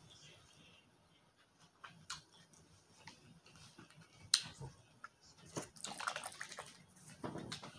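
Close mouth sounds of eating and drinking: a few sharp lip smacks and clicks, then a run of sips and swallows from a plastic drink bottle in the last two seconds.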